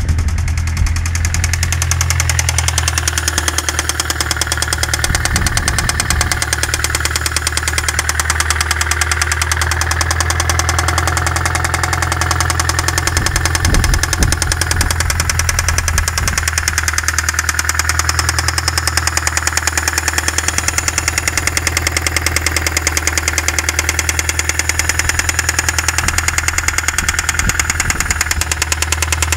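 Toyota 2ZZ-GE 1.8-litre four-cylinder engine running steadily with a knock. The knock showed up 1900 km after a major overhaul, together with a loss of power, and the owner cannot find the cause: compression is even across the cylinders and the valves are in order.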